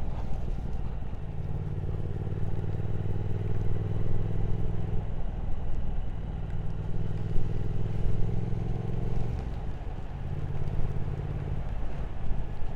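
Motorcycle engine running under way at road speed, with wind rush. Its note shifts a few times, around 5 and 9 seconds in, as throttle and gear change.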